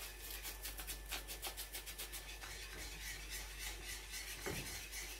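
Spatula stirring and scraping round a glass bowl of custard cream as it thickens on the stove, in quick repeated strokes. A soft knock about four and a half seconds in.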